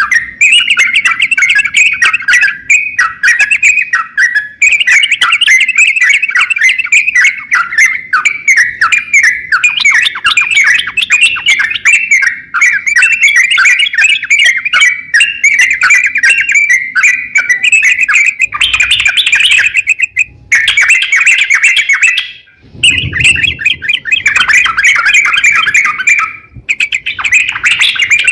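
Crokcokan songbird singing loudly in full song, a nearly unbroken stream of rapid chirps and trills with a few short pauses.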